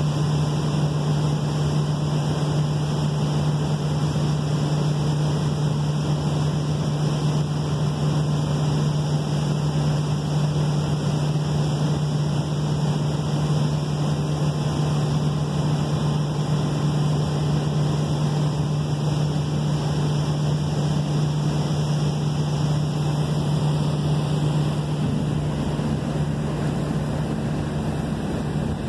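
Steady low droning hum of ship engines over a constant rushing noise, with the deepest rumble growing a little stronger near the end.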